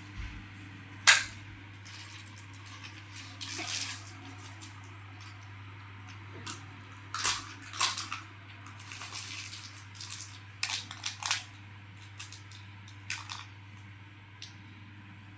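Irregular sharp clicks and taps of small objects, scattered and uneven, the sharpest about a second in, over a low steady hum.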